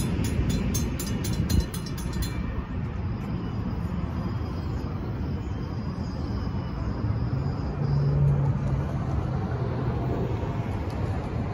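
Safetran mechanical crossing bells ringing fast, about four or five strokes a second, then stopping suddenly about two seconds in as the crossing clears and the gates go up. A steady rumble of passing traffic follows, swelling briefly around eight seconds in.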